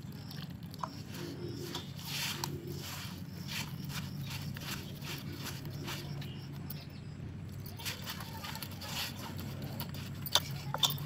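Hands kneading freshly watered wheat-flour dough in a stainless steel bowl: irregular squelching and slapping of the wet dough, with scrapes against the bowl, over a steady low hum.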